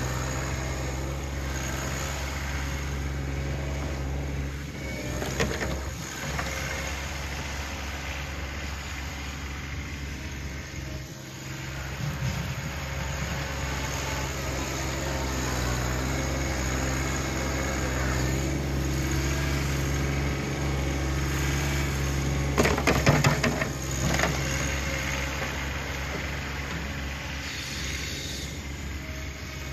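John Deere 1026R compact tractor's three-cylinder diesel engine running steadily while it pushes snow with its front loader. Sharp clattering knocks come about five seconds in and, loudest, around twenty-three seconds in.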